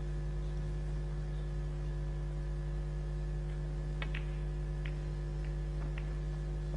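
Steady electrical mains hum in the recording. About four seconds in come a few faint clicks of snooker balls: the cue tip striking the cue ball and the cue ball hitting an object ball, then a couple more light ball clicks.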